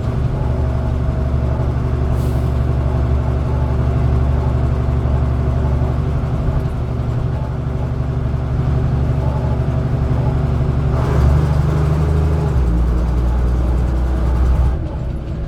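Dennis Dominator double-decker bus engine running steadily under load. Its note changes about 11 seconds in and again a little later, and the sound drops in level just before the end.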